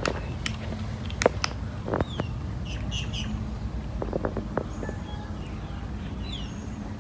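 A kitten crunching dry cat kibble: irregular sharp crunches, with a cluster about four seconds in. Small birds chirp a few times with short falling calls.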